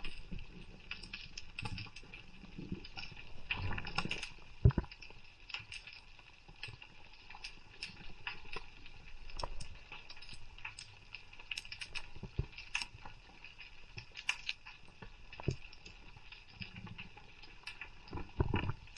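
Underwater ambience over a rocky reef heard through a camera's waterproof housing: an irregular crackle of sharp clicks, with one louder knock about five seconds in.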